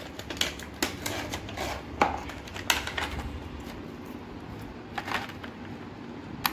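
A small cardboard box of wireless earbuds being opened and its insert handled: irregular light clicks and taps with soft rustling between them.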